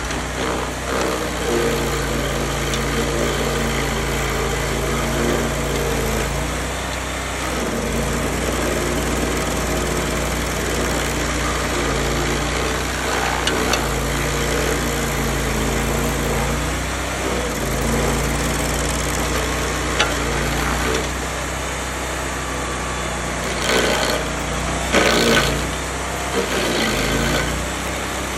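Vermeer SC252 stump grinder's 35 hp Kohler engine running steadily, its note shifting every few seconds. A few short rasping bursts come near the end.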